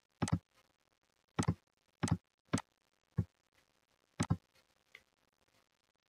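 Computer mouse button clicks: about seven short, sharp clicks at uneven intervals, some in quick pairs, as wires are placed in a circuit-drawing program.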